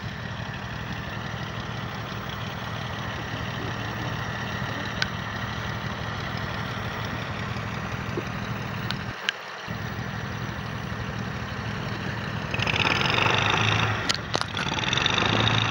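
A 6x6 ATV engine idling steadily, with a short break a little after nine seconds; about twelve and a half seconds in it gets louder and harsher.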